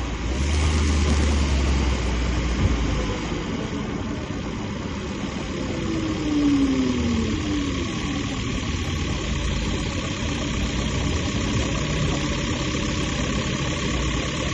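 Second-generation Toyota Prius 1.5-litre four-cylinder petrol engine running, with a brief falling whine about six seconds in. The owner reports an engine knock that comes on when the engine is hot and under load.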